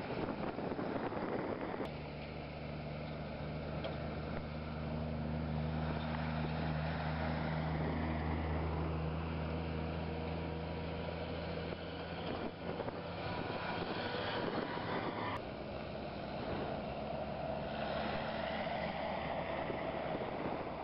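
Old military vehicles, jeeps and Land Rover station wagons, driving past on a gravel road, their engines running with a steady low hum under wind on the microphone.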